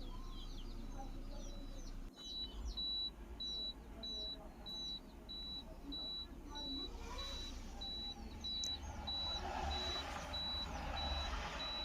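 Tata Cummins diesel truck engine idling with a steady low rumble. From about two seconds in, a high electronic beep repeats rapidly and evenly over it, and birds chirp faintly.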